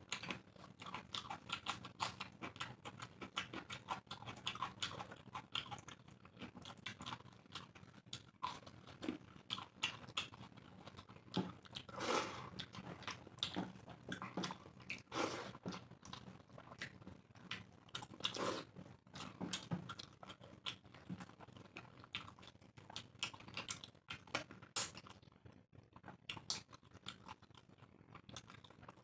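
Two people chewing and smacking their lips as they eat chicken curry and rice by hand, heard as a dense run of irregular short wet clicks and smacks.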